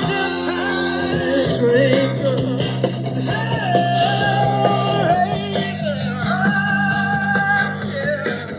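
A song playing: a singing voice holding long notes over guitar and a steady bass line.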